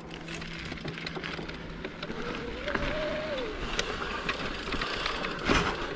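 Mountain bike riding over a dirt trail: steady tyre-on-dirt and bike rattle noise with scattered clicks. About halfway through, a brief faint tone rises and then falls.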